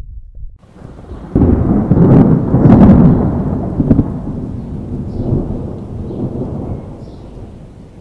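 Thunder: a clap that breaks sharply about a second in, with a few crackling cracks, then rolls on and slowly fades.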